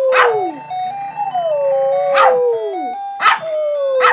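A spitz dog howling along to an alarm clock's electronic tune: long howls that slide down in pitch, one ending about half a second in, a full one about a second later and another starting near the end. Under them runs the clock's beeping melody of stepped notes, with short sharp accents in between.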